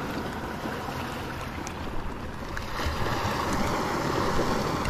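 Steady wash of small waves lapping in shallow seawater, with wind on the microphone.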